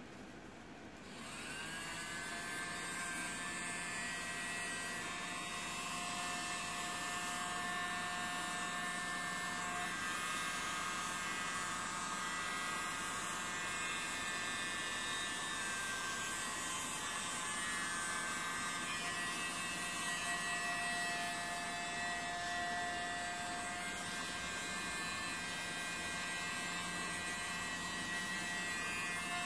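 Handheld electric mini blower switched on about a second in, its small motor spinning up and then running with a steady whirring hum as it blows air across wet acrylic paint.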